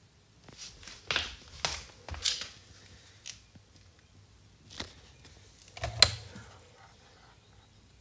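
Handling noise from a plastic fire-alarm horn/strobe being picked up and turned over: a handful of irregular knocks and scrapes, the sharpest one about six seconds in. The alarm itself is silent.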